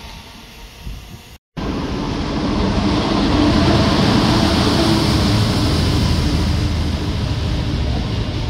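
Freightliner Class 66 diesel locomotive (EMD two-stroke V12) passing close by, followed by the rumble and rattle of empty intermodal container flat wagons. The sound starts abruptly about a second and a half in, is loudest as the locomotive goes by, then runs on steadily under the wagons.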